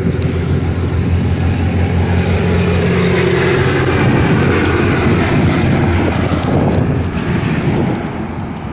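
A motor vehicle's engine running close by: a loud, steady low hum under broad noise, easing off a little near the end.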